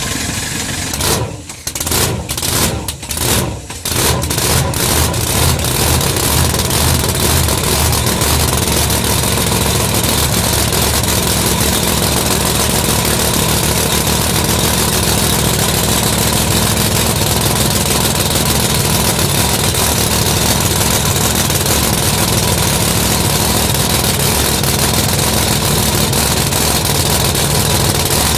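Chevy Vega funny car engine being fired up with an external starter: it catches in a few uneven bursts over the first few seconds, then settles into a loud, steady idle.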